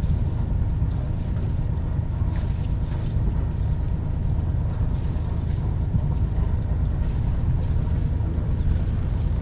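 Sailboat's inboard engine running steadily at low speed during a slow docking manoeuvre, heard as a low, even rumble.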